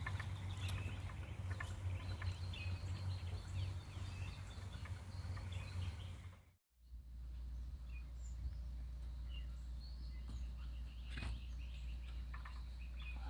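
Outdoor ambience: birds chirping over a steady low rumble of distant highway traffic. About halfway through the sound cuts out completely for a moment, then returns with the low rumble deeper and the chirps continuing.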